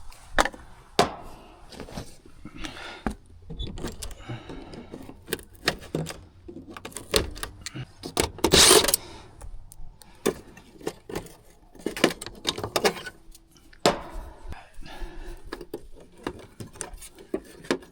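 Small metal clicks, knocks and rattles of a technician's hands and tools working on capacitor terminals and wiring in an HVAC unit, with one loud brief rustle about halfway.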